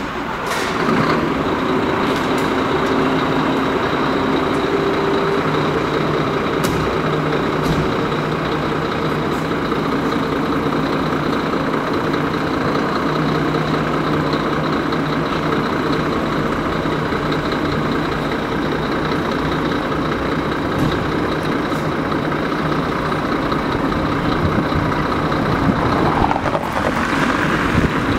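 Scania P400 fire engine's diesel engine idling steadily in the station doorway; it comes up loud about half a second in and then holds even.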